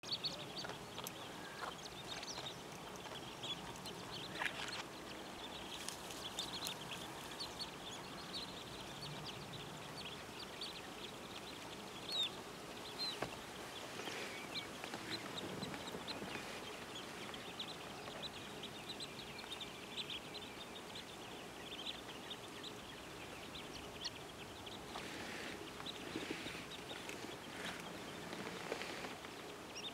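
Many birds calling in a wetland: short, high chirps and twitters scattered throughout, over a faint steady background hiss.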